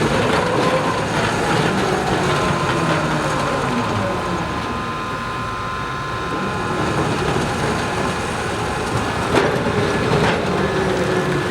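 Railway wagons of a steam-hauled spoil train rolling along the track, their wheels squealing in long drawn-out tones, with two sharp knocks near the end.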